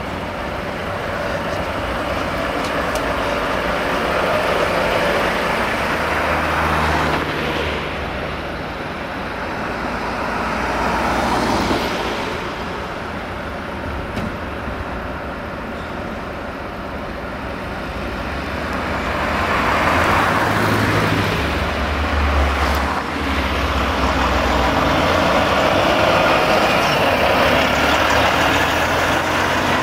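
Heavy truck engine running, a Volvo FH16 750 tractor unit with its 16-litre straight-six, along with street traffic. The engine hum and road noise swell and fade several times and are loudest from about two-thirds of the way in.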